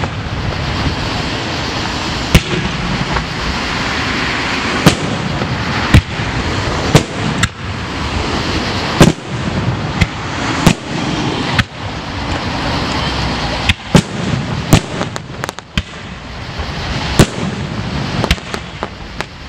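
Aerial firework shells bursting in a display: loud, sharp bangs every second or so at uneven spacing, with a quick run of several bangs about three-quarters of the way through, over a steady background of noise.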